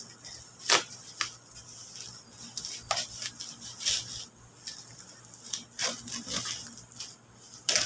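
Plastic packaging wrap crinkling and tearing as a knife cuts it open, in irregular sharp crackles and rustles, the loudest about a second in and near the end.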